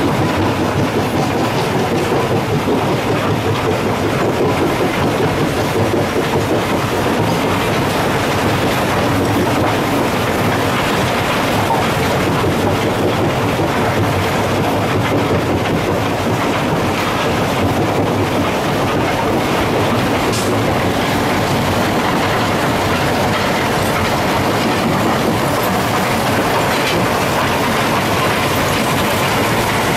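Belt conveyor and other machinery of an alluvial cassiterite (tin sand) separating plant running, making a steady, dense mechanical noise without letup.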